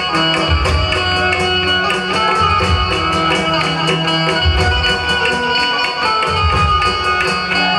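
Loud garba dance music played over a DJ sound system: a melody over tabla-style drumming with a steady, quick beat and deep bass beats.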